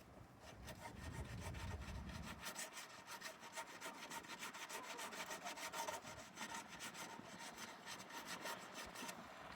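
Sandpaper rubbed by hand over a car's painted steel body panel in quick back-and-forth strokes, a steady rasping scrub to take down rust and paint before touch-up.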